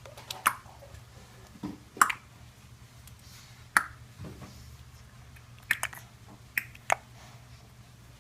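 Tongue clicks, sharp and short, about seven in all at irregular gaps, with two quick pairs near the end.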